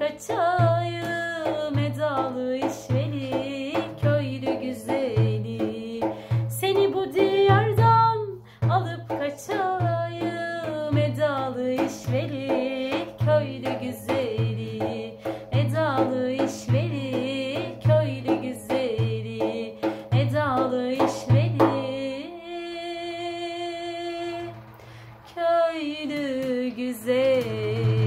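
A woman sings a Turkish folk melody over a frame drum beaten in a steady, even rhythm. Near the end the drum drops out while she holds one long note, then the beat comes back.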